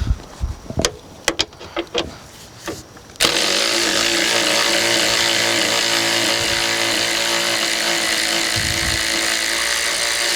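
A few light clicks and knocks, then about three seconds in a power tool's motor starts and runs steadily at one pitch for about eight seconds.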